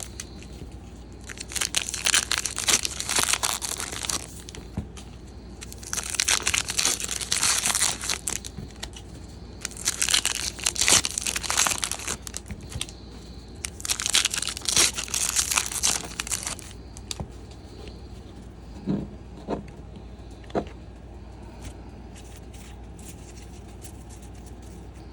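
Foil wrappers of Topps Gypsy Queen trading-card packs being torn open and crinkled, in four separate bursts of a few seconds each. Then come a few soft taps and quieter handling.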